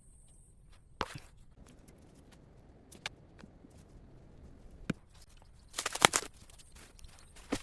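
Scattered sharp knocks, single ones about one, three and five seconds in, then a louder brief cluster of scraping or rustling about six seconds in, over a quiet low background.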